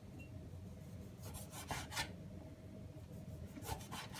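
Kitchen knife slicing through a lime on a wooden chopping board: a few soft, faint cutting strokes, about a second and a half in and again near the end.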